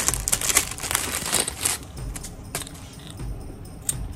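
Plastic packaging bag crinkling for about two seconds as an acrylic keychain is worked out of it, then a few light clicks.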